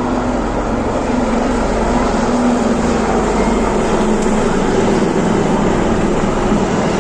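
Military aircraft passing over an air show, a loud, steady engine noise that holds for the whole stretch.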